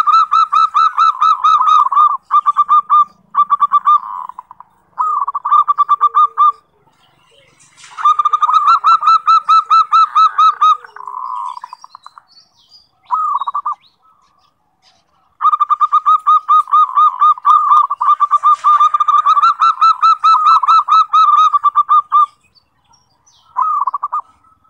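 Zebra dove (perkutut) song: phrases of rapid, evenly repeated cooing notes, some short and one lasting about seven seconds, separated by brief pauses.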